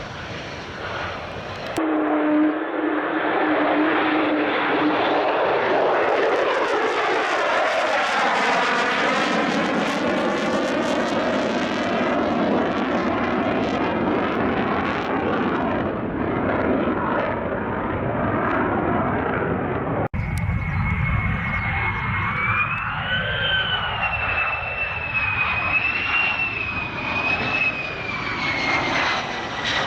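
Lockheed Martin F-35A Lightning II fighter jet flying past low, its engine rush swelling and sweeping in pitch as it passes. Later the high whine of a jet engine wavers up and down over the noise.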